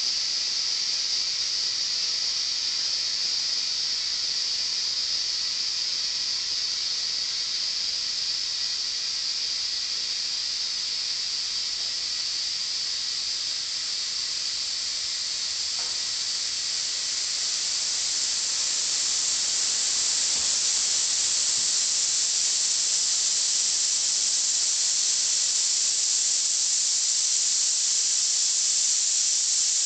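Steady high-pitched hiss of compressed air flowing through a clip-on air chuck into a Dunlop snow tire that has shifted cords in its tread, over-inflating it toward rupture. The hiss grows a little louder just over halfway through.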